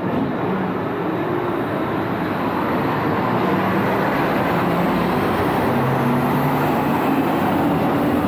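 Steady city street noise with vehicle traffic running, with short low engine hums coming and going.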